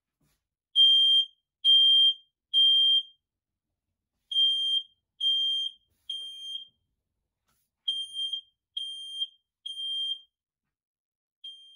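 Smoke detector sounding its fire alarm: loud, high-pitched beeps in groups of three, about one a second, with a short pause between groups, three groups and the start of a fourth. It has been set off by smoke from burning PLA plastic.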